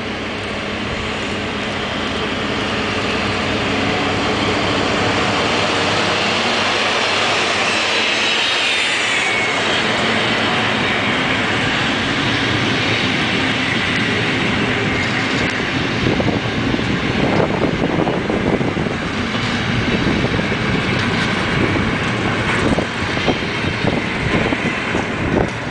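DR class 118 diesel-hydraulic locomotive passing close by, its engines running, with a high whine that falls in pitch as it goes by. Then a train of old passenger coaches rolls past, the wheels rumbling on the rails and clicking over the rail joints in the second half.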